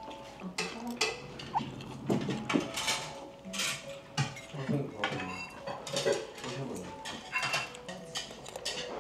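Cutlery clinking and tapping against plates and bowls during a meal: a steady, irregular run of sharp clinks, some with a brief ring.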